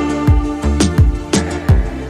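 Background music with a steady drum beat and sustained instrumental tones.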